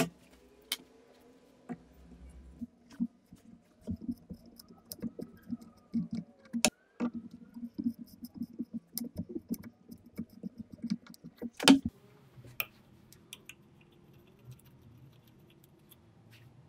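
A hand tap cutting thread into a steel plate, turned by a tap wrench: a run of small irregular clicks and creaks, with one sharper click about three quarters of the way through and only a few faint ticks after it.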